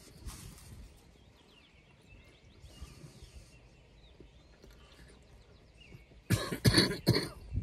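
A man coughing and clearing his throat in a short, loud run of several coughs near the end, after a few quiet seconds with faint high chirps.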